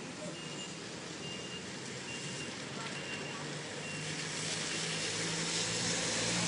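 Vehicle traffic on a wet street with a steady hiss. A reversing alarm sounds a short high beep about every three-quarters of a second, fading out about halfway through, while an engine hum and the hiss grow louder toward the end.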